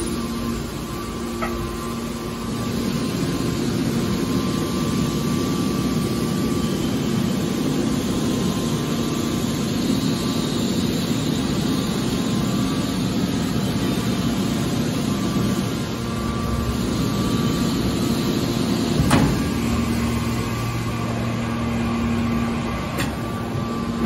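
Hydraulic metal baler running: a steady mechanical hum and hiss, with a sharp click about three-quarters of the way through.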